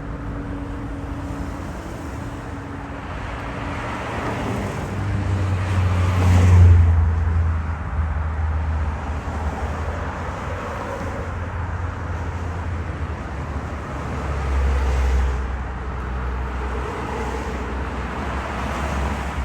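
City street traffic: vehicles passing, the loudest about six seconds in and another around fifteen seconds in, over a steady background of traffic noise.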